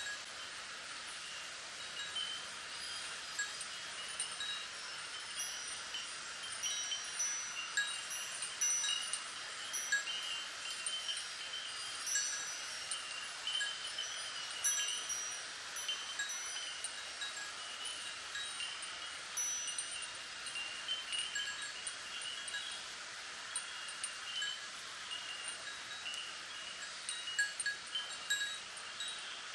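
Chimes ringing irregularly, many short high tinkling notes overlapping, over a steady rustle of wind through bamboo leaves.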